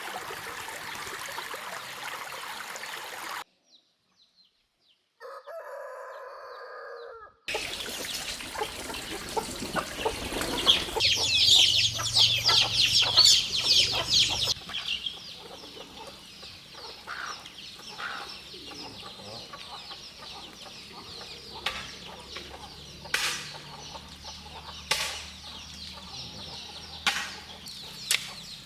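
Domestic chickens: a crow lasting about two seconds after a brief silent gap, then a loud stretch of clucking and squawking that eases into scattered quieter clucks.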